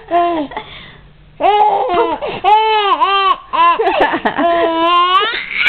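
A 7-month-old baby laughing in repeated pitched, hiccuping bursts, set off by a sister's spoken "poop". The laughs pause briefly about a second in, then start again in a long run that climbs in pitch near the end and closes on a short breathy burst.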